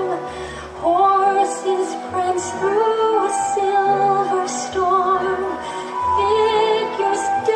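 Background music: a wavering melody over changing bass notes, with a light percussion hit about once a second.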